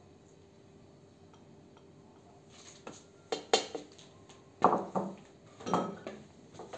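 Kitchen utensils and a small bowl clinking and knocking as they are put down: a few sharp clinks about three seconds in, then heavier knocks near the end, after a quiet start.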